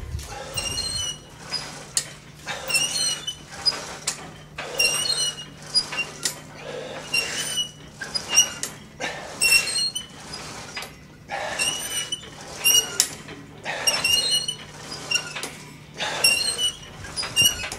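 Cable machine pulleys and cables squeaking with each rep: a short, high squeak about once a second, over a faint steady low hum.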